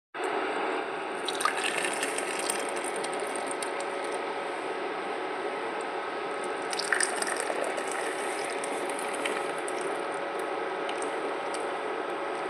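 Hot milk tea being poured from the pan through a strainer: a steady trickle of liquid, with light clinks about one and a half seconds in and again about halfway.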